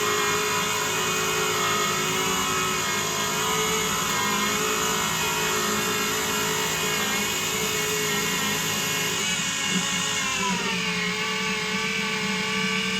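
Small CNC lathe running a turning cut: a steady motor whine with several tones over a noisy hiss as the tool turns the handle blank down to 18 mm. The pitch drops a little about ten and a half seconds in.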